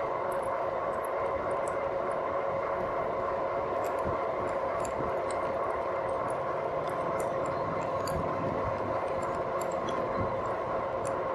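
2018 RadMini electric fat-tire bike cruising at a steady speed: a steady whine from the hub motor over the hum of the fat tyres on pavement, with faint scattered ticks.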